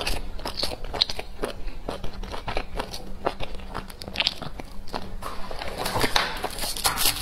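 Close-miked eating of dumplings: chewing and biting heard as a quick string of short mouth clicks, with a louder rustling noise near the end.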